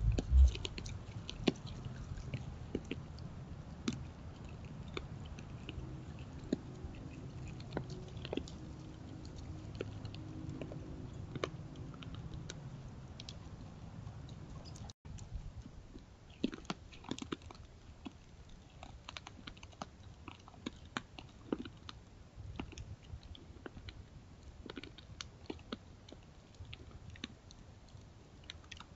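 White-tailed deer feeding at close range: an irregular run of crunching chews and small clicks as they eat from the tops of tree stumps, with a brief break about halfway through.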